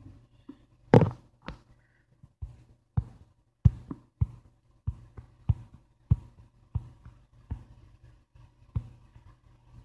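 A series of short sharp knocks or taps, about one every half to two-thirds of a second, the first about a second in being the loudest, over a faint steady low hum.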